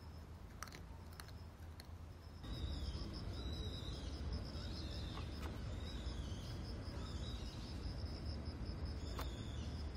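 Insects chirping in a steady, fast-pulsing high trill over a low background hum, louder from about two and a half seconds in; short higher chirps come and go over it.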